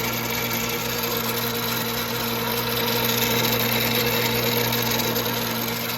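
Vintage Atlas lathe running, a steady electric-motor hum with a grinding machine noise over it that grows a little louder about halfway through.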